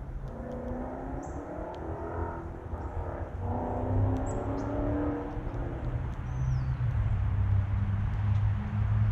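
A motor vehicle running close by, its low engine hum getting louder in the second half, with a few short, high bird chirps over it.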